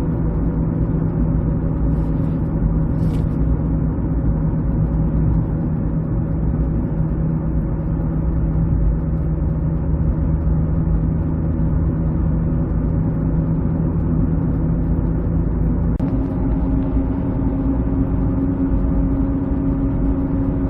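Steady humming from the front of a 2006 Ford Escape Hybrid, heard inside the cabin while driving, over road rumble; about three-quarters of the way through, the hum jumps to a higher pitch. The hum changes only with road speed, and the owner, having ruled out the tyres, suspects a wheel bearing, the brakes or the electric motor.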